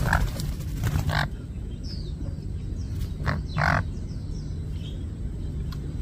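A steady low rumble with a few short animal calls and faint high bird chirps.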